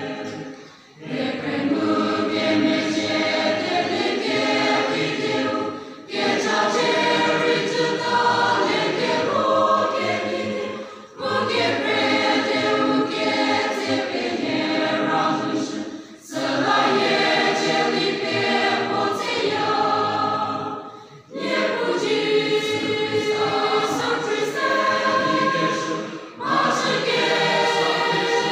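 A large choir of young women and men singing a sacred song. The phrases are about five seconds long, each broken by a short pause for breath.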